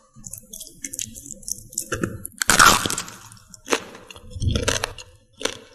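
A person biting into crunchy food and chewing it close to the microphone. A series of crackly crunches, the loudest a bite about two and a half seconds in.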